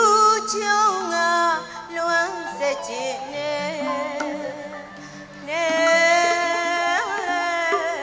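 Burmese traditional music: a singing voice carries a wavering, ornamented melody over lower instrumental notes that move in steps. The melody is loud at the start, dips in the middle, and swells again about five and a half seconds in.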